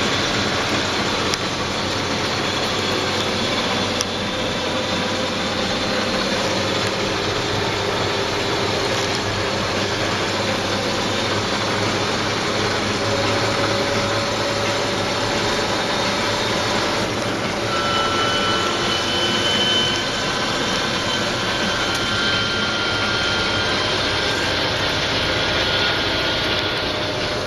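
JCB Fastrac tractor driving fast across a paddock, heard from inside the cab: a loud, steady mix of diesel engine and tyre noise. A faint high whine joins about two-thirds of the way through.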